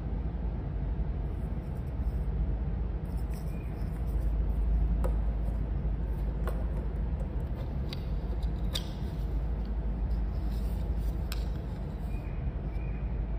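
Plastic toy food pieces clicking as they are handled and set down on a table: about five sharp taps over a steady low background rumble.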